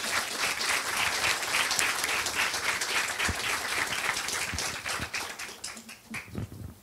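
Audience applauding a finished talk, the clapping thinning out and dying away about five to six seconds in.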